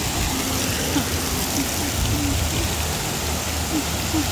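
Steady rush of water from a wave pool's small waves washing onto a shallow beach, with a low rumble underneath.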